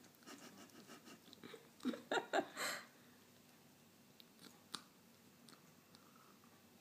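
Yellow-fronted Amazon parrot drinking tea from a cup: a run of small clicking and lapping sounds from its beak and tongue, loudest in a cluster about two seconds in, then a few light ticks.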